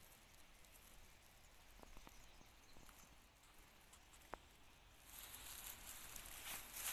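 Near silence with a few faint clicks; about five seconds in, a rustling hiss starts and grows, like someone beginning to move through tall grass and ferns.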